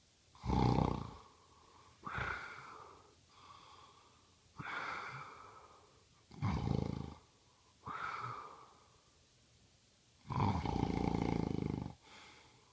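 A man snoring in his sleep, with a breath about every two seconds. Deep snores alternate with quieter, higher breaths, and the longest, loudest snore comes near the end.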